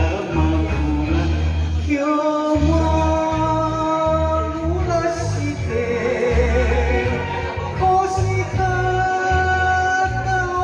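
A man singing an enka song into a karaoke microphone over a backing track with a steady bass pulse, holding two long notes.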